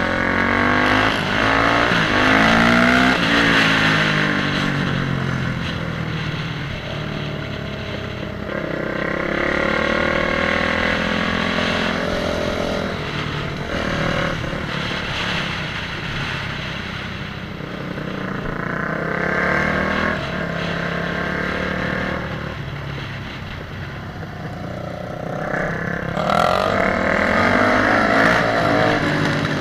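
Motorcycle engines revving up and down over and over, the pitch rising and falling as they accelerate and ease off, with louder surges about a second in, about ten seconds in, around twenty seconds and near the end.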